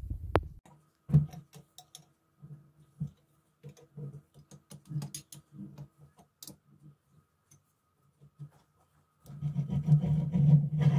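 Rusty cast-iron fly press being handled: scattered metal clicks and knocks, then about two seconds of continuous grating near the end as the heavy ball weight is twisted on the press's arm.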